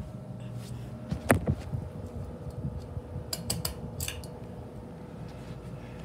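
Hampton Bay Hawkins 44-inch ceiling fan running with a steady hum, with a few sharp light clicks about a second in and a quick cluster of clicks around three to four seconds in.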